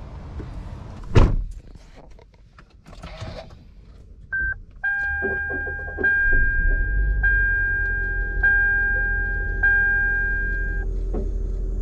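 A thump, then one short electronic beep followed by a steady electronic beeping tone that breaks off briefly about every second and stops near the end, over a low hum.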